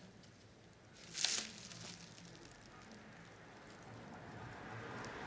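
A short scrape of small tools against the cassette deck's mechanism about a second in, then faint handling noise.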